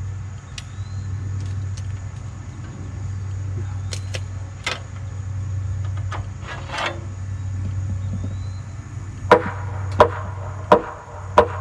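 A tractor engine idles steadily while a hammer strikes the white oak header. There are a couple of knocks midway, then four blows in quick succession near the end.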